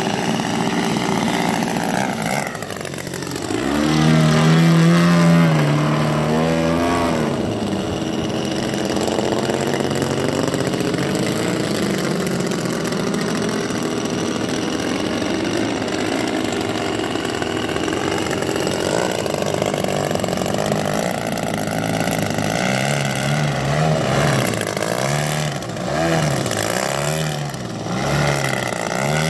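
ZDZ 180 twin-cylinder two-stroke gas engine of a 40% scale Extra 300 RC aerobatic plane, swinging a 32x12 propeller in flight. Its pitch falls as the plane passes about 2 to 3 seconds in, it runs loudest with the throttle changing for a few seconds after, and near the end it rises and falls in quick throttle pulses while the plane hovers nose-up.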